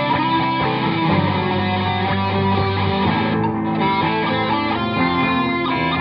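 Background music led by guitar, steady and continuous.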